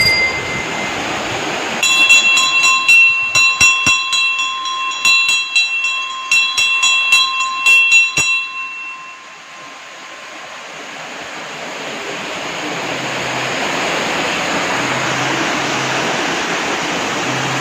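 Hanging temple bell rung again and again, about three strikes a second for some six seconds, each strike leaving a ringing, many-toned hum. After it stops, a stream rushing over rocks grows steadily louder.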